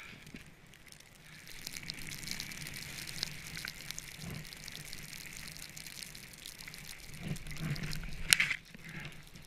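Snowboard sliding through powder snow: a steady hiss of the board over the snow, with a sharp crunching hit about eight seconds in.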